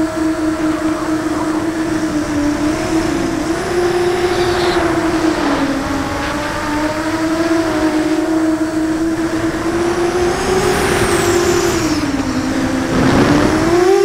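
QAV 250 quadcopter's DYS 2300kv brushless motors and propellers, heard from the onboard camera: a steady hum whose pitch wavers with throttle, dipping twice and rising again near the end. A brief rush of noise comes about a second before the end.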